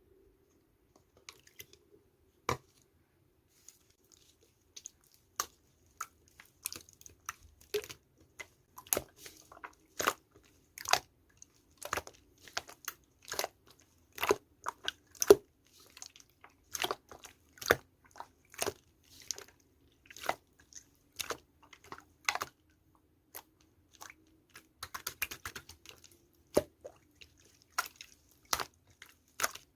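Clear slime being pressed and squished by hand, giving sharp, irregular popping clicks about once or twice a second, with short crackly clusters now and then.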